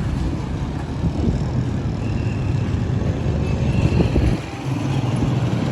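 Steady low hum of motor vehicle engines in street traffic.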